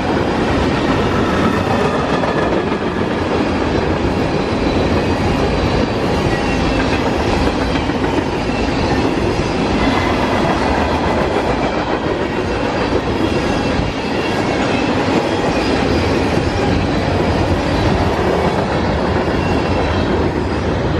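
Norfolk Southern freight train's cars rolling past, a steady, loud noise of steel wheels on rail that holds at one level throughout.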